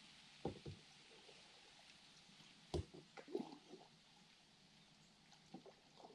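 Knocks and thumps from a Hobie kayak's plastic hull and paddle as the paddler shifts aboard and shoves off the sandy shore: a loud one about half a second in, another near three seconds, then smaller ones, over a faint steady hiss.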